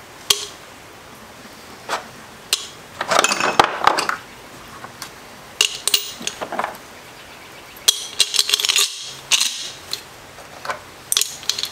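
Small rusty steel sockets being dropped into a glass jar one or a few at a time, clinking against the glass and against the sockets already inside, in irregular clusters of sharp clinks with short pauses between.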